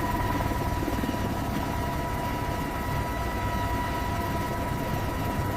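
Steady aircraft engine noise: a low rumble with a thin, steady high whine over it.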